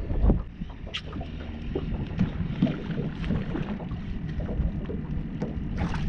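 Wind rumbling on the microphone over water moving against a small boat, with a couple of short knocks, about a second in and just before the end.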